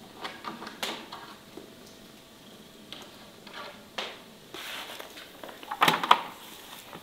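Irregular knocks and clatter of food and utensils being handled during vegetable preparation, with the loudest burst of clatter about six seconds in.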